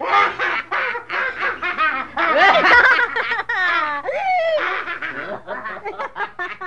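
Hearty human laughter, a rapid run of short pulses with pitch sliding up and down. It is loudest a couple of seconds in.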